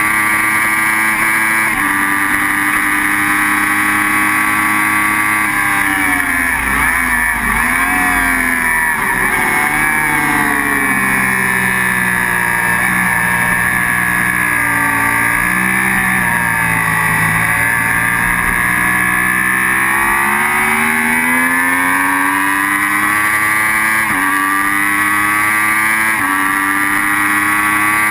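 Sport motorcycle engine at racing revs, heard from the bike with wind rushing past: it pulls hard with a sudden drop in pitch about two seconds in, falls away with quick blips around six seconds as the rider brakes and shifts down into a corner, swells and dips through the turns, then climbs again with two more gearshifts near the end.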